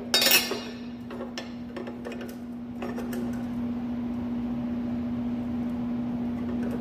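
Light metallic clinks and taps as a speed square is handled against the chop saw's blade and vise, sharpest in the first half second and then a few fainter taps. A steady low hum runs underneath.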